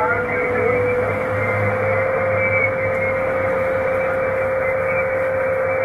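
An ICOM HF transceiver's single-sideband receive audio: steady band-noise hiss, cut off sharply above the voice band, with a steady single-pitch whistle from a carrier on the frequency.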